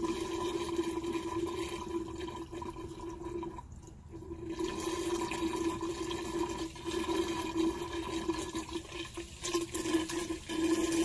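Pool antifreeze draining and gurgling down the main drain line through the pump's strainer housing, a steady flowing gurgle that drops away briefly about four seconds in.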